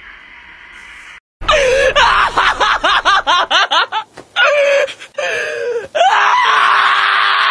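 Shiba Inu screaming while held for a claw trim: starting about a second in, a rapid run of short, high, rising-and-falling yelps, then a few longer cries, then one long, steady scream.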